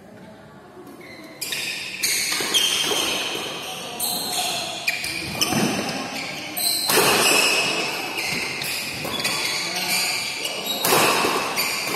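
Badminton doubles rally on an indoor court: rackets striking the shuttlecock and shoes squeaking and shuffling on the court. It gets much louder about a second and a half in.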